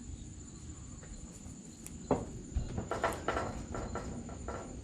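Crickets trilling on one steady high note, with a scatter of light knocks and taps starting about two seconds in.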